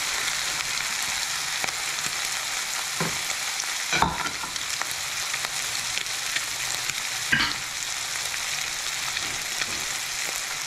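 Egg omelet with ham and cheese sizzling steadily in a frying pan. A few short knocks sound over the sizzle, the loudest about four seconds in and another about seven seconds in.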